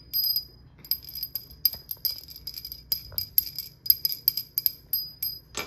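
Small brass puja hand bell ringing in a quick, uneven run of strikes, each giving a clear high ring, with a louder knock at the very end.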